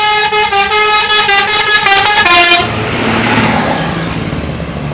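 Bus telolet horn playing a fast run of changing musical notes, cutting off about two and a half seconds in. A rushing noise and a low engine rumble follow.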